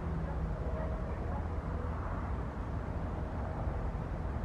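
Steady low rumble of distant engines, with a faint hum that fades out in the first second or so.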